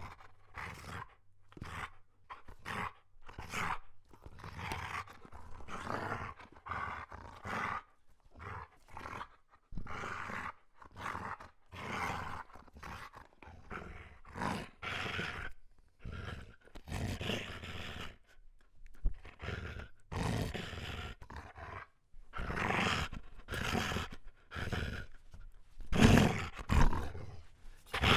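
German Shepherd dog groaning in a long run of short vocal sounds, one after another with brief gaps. The sounds get louder in the last few seconds.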